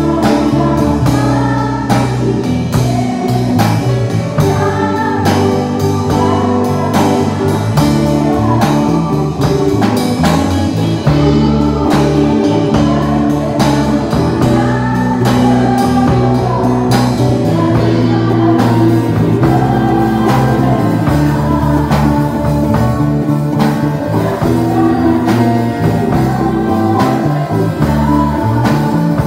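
Live worship band playing a song on electric bass, electric guitar and drum kit, with singing over it.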